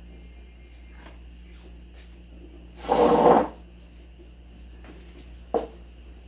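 A short scrape, under a second long, about three seconds in, followed by a single light knock a couple of seconds later, over a faint steady hum.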